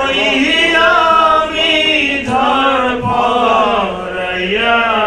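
A man singing a Bengali song into a microphone, unaccompanied, holding long drawn-out notes.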